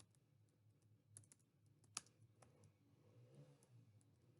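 Faint, scattered computer keyboard clicks: a handful of single keystrokes spread irregularly, the clearest about two seconds in, over near silence.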